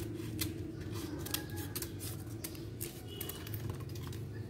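Scissors snipping dry, brittle Indian almond leaves: a quick, irregular run of crisp cuts and crackles, several a second. A steady low hum runs underneath.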